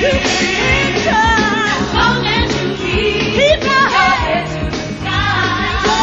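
Female lead vocalists singing a gospel song over a live band, with a sustained bass line and steady drum beat; the lead voice holds notes with wide vibrato and bends between them.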